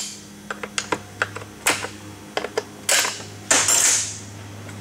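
A chainsaw's plastic top cover being taken off by hand: a string of sharp clicks and knocks, with two longer scraping sounds about three seconds in as the cover is worked loose. A steady low hum runs underneath.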